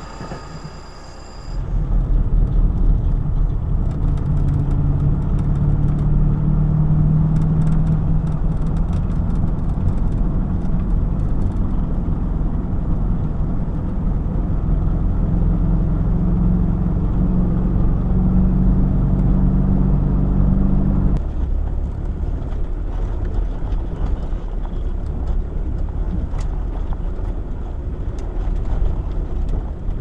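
Inside the cab of a UAZ Bukhanka van on the move: a loud, steady low engine drone with road noise, starting suddenly about a second and a half in. About two-thirds of the way through, the drone's steady tone falls away and the noise runs a little quieter.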